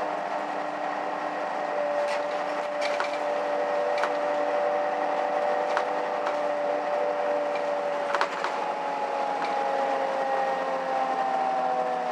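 Cabin of a Mercedes-Benz O530 Citaro city bus on the move: steady drivetrain hum with a few whining tones that fall in pitch in the second half, under road noise. Scattered sharp clicks and rattles from the interior fittings, the loudest knock about eight seconds in.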